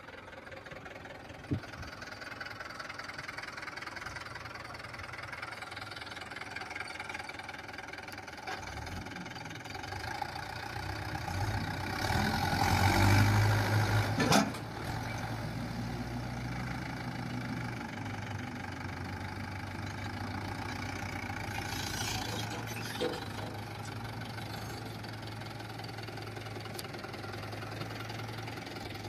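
Mahindra Yuvo tractor's diesel engine running steadily, revving up hard under load a little before the middle while the tractor works in deep mud, then dropping back suddenly to a steady run.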